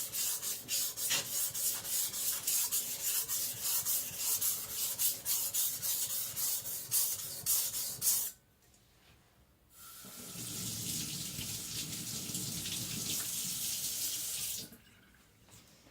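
Steel cleaver blade being ground back and forth flat on a whetstone in quick, even strokes, about three a second, to thin the blade. Near the middle the stroking stops, and a water tap then runs steadily for about five seconds before shutting off.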